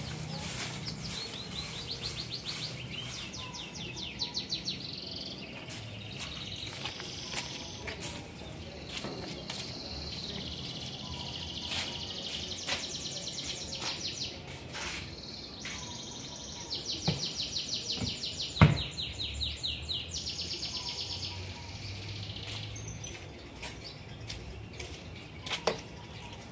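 Songbirds chirping and singing in fast trilled runs of high notes, repeated several times. Scattered sharp clicks and knocks sound alongside, with one louder knock about two-thirds of the way in.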